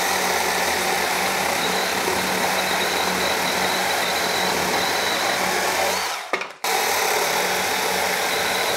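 Milwaukee M12 FUEL Hatchet battery pruning chainsaw running and cutting through a branch: a steady motor and chain whine with the rasp of the chain chewing wood. The sound cuts out briefly about six seconds in, then picks up again.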